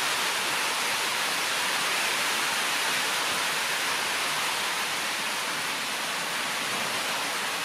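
A steady, even hiss.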